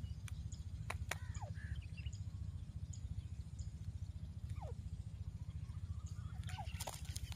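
A few faint, short, downward-gliding bird chirps and scattered sharp clicks over a steady low rumble, with a busier cluster of clicks and chirps near the end.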